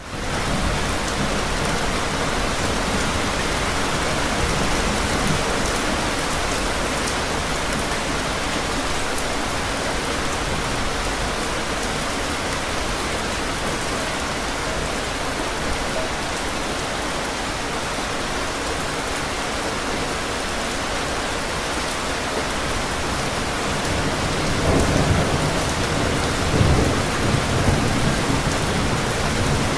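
Steady heavy rainfall, a dense even hiss of rain falling on pavement. Low thunder rumbles through it about three-quarters of the way in.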